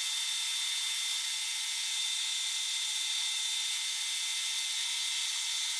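Metal lathe turning and cutting a steel 45 bar, its sound sped up sevenfold with the picture, so it comes out as a steady high-pitched whine with a thin tone.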